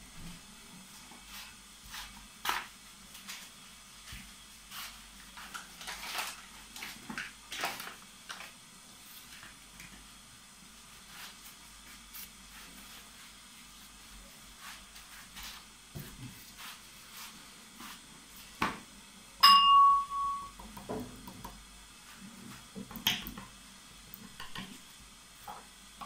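Paintbrush working on paper: soft scratchy strokes and light taps scattered throughout, with one sharp clink that rings briefly about 19 seconds in.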